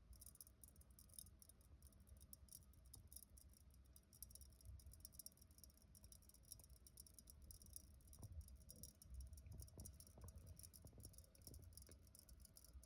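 Dry rice grains soaking in water, giving off a faint, dense crackle of tiny clicks as they take up the water, with a few louder clicks in the second half.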